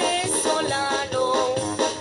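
Background music: a Mexican corrido with a steady beat.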